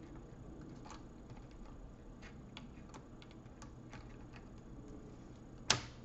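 Small plastic clicks and taps as a laptop motherboard is pressed and pried into its plastic casing with a plastic pry tool, with one sharp, louder click near the end.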